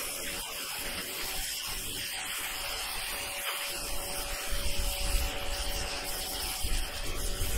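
Steady hiss of a Ryobi 1600 psi electric pressure washer's turbo-nozzle water jet blasting moss off asphalt roof shingles. About halfway through, a gusty low rumble joins in and the sound grows louder.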